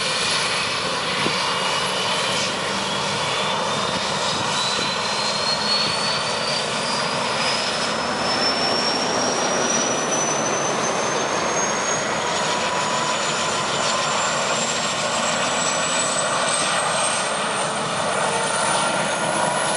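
Super Puma helicopter starting up: a turbine whine climbs slowly and steadily in pitch over a steady rushing engine noise as the main rotor begins to turn.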